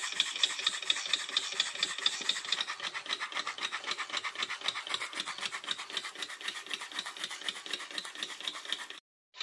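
Miniature alcohol-fired live-steam beam engine running at speed: a fast, even chuffing and clicking from its cylinder and linkage, with a hiss behind it. The sound cuts out abruptly near the end.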